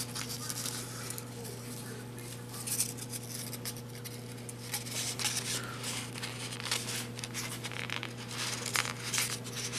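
Cardstock paper rustling and crinkling as a strip of it is rolled tightly around a piece of fast-burning fuse by hand, in a run of short, uneven rustles and scrapes. A steady low hum runs underneath.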